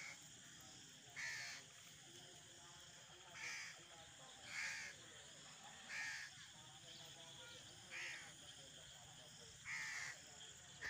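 A bird calling outdoors: about seven short calls, one every one to two seconds, over a quiet steady background.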